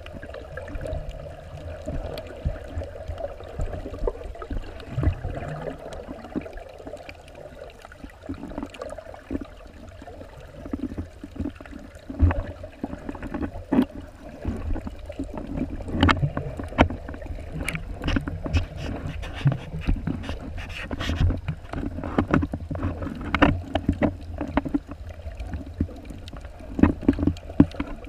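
Underwater water noise picked up by a camera while snorkeling: a steady, muffled low rumble of moving water, with scattered sharp clicks and knocks that come more often in the second half.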